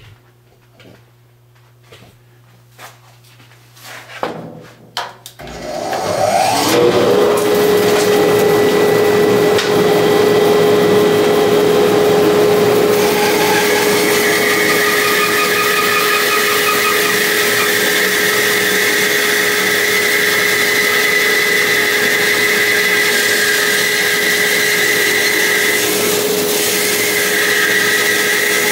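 Bandsaw switched on about five seconds in: the motor and blade spin up with a rising whine, then run at a steady pitch. From about halfway through, a higher whine joins as the blade cuts through a round green-wood bowl blank held on a screwed-on backing board.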